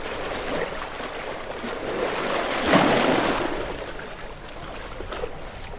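Sea waves breaking on a rocky shore: a steady wash of surf, with one wave crashing loudest about three seconds in and then fading.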